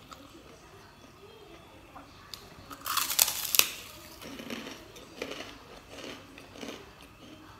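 A person biting into a crispy white cracker: a loud crackling crunch about three seconds in, then several seconds of crunchy chewing.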